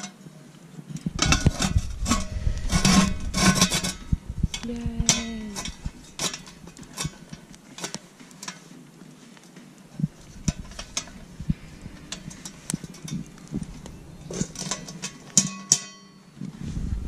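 Metal camp oven and its lid clanking and scraping as the lid is fitted on and settled, with the wire bail handle rattling. The densest clatter comes in the first few seconds, with scattered clinks after, and another burst near the end.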